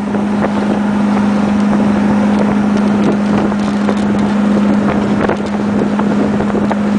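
Wind buffeting the microphone over a steady low-pitched hum.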